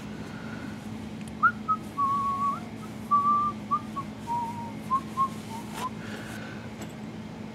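A man whistling a short tune to himself, a string of held and stepping notes that starts about a second in and stops about a second and a half before the end, over a steady low hum.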